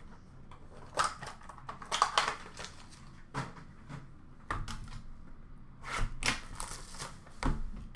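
Hands handling hockey card boxes and packaging on a shop counter: an irregular run of clicks, taps and crinkly rustles.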